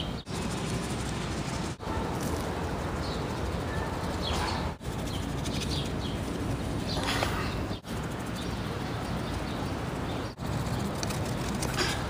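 Birds chirping now and then over a steady outdoor rumble, which drops out for a moment several times.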